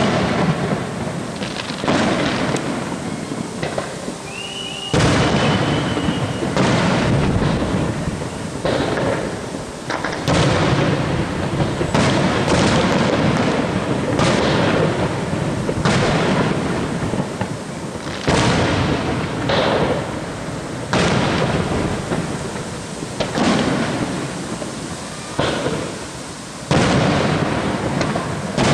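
Fireworks display: aerial shells bursting about once a second, their booms overlapping into a continuous rumble like thunder. A brief high whistle sounds about four seconds in.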